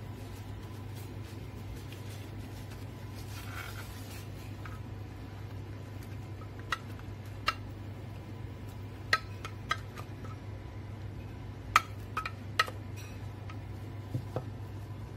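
Metal spoon clinking against an open tin can of tuna while tuna is scooped out: about nine sharp, separate clinks, starting about halfway through, over a steady low hum.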